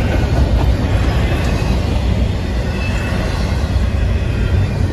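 Double-stack intermodal freight train rolling past at close range: a loud, steady rumble of steel wheels on rail with the rushing noise of the passing container well cars.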